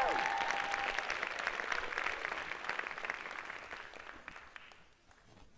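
Audience applauding, the clapping dying away over about five seconds.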